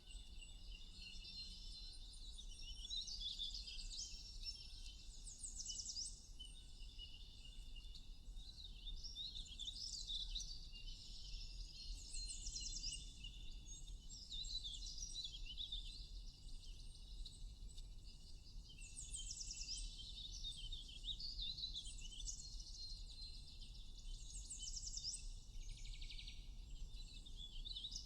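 A chorus of songbirds chirping and singing over one another, with quick trills of rapidly repeated high notes breaking out every few seconds.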